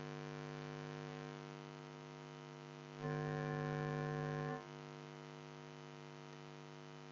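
Steady electrical mains hum picked up in the recording, with no other sound. It grows louder for about a second and a half near the middle, then drops back.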